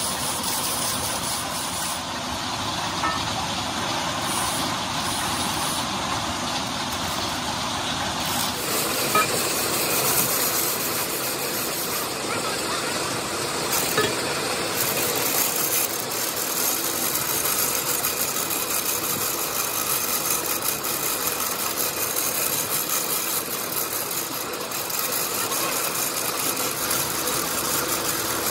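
Steady mechanical din of engine-driven machinery running, with a couple of faint knocks. The sound changes in character about a third of the way in.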